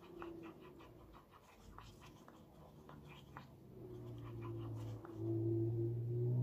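Wooden stir stick scraping and tapping around the inside of a paper cup of mixed resin, a run of light scrapes and ticks. A low steady hum comes in halfway through and grows louder near the end.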